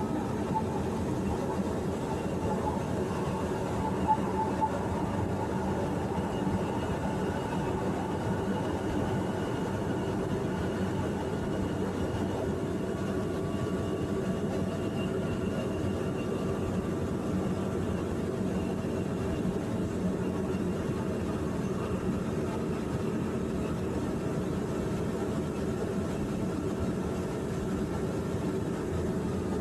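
Passenger train running steadily, heard from on board: a continuous rumble with a faint whine that shifts slowly in pitch, and a couple of light ticks about four seconds in.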